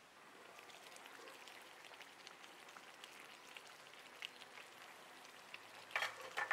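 Fish curry simmering in a pot, with a faint steady crackle and scattered small pops. A few sharper clicks come near the end.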